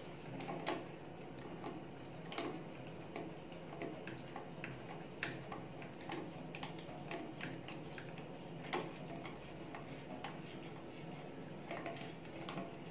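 Pliers clicking and scraping against the chrome nut under a wall-mounted kitchen mixer's swivel spout as the nut is turned loose: faint, irregular metallic ticks.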